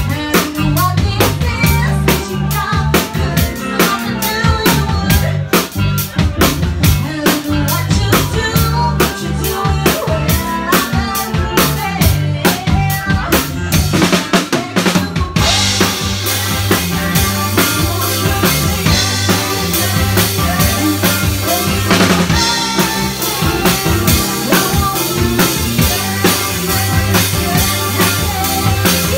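Live cover band playing a dance-pop number: drum kit keeping a steady beat with bass, and a woman singing into a handheld microphone. About halfway through the cymbals come in brighter and fuller.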